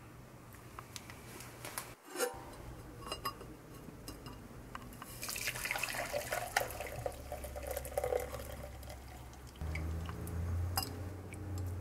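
Hot coffee poured from a saucepan through a fine-mesh metal strainer into a glass measuring cup: liquid splashing and trickling, loudest in the middle, with light clinks of metal against glass.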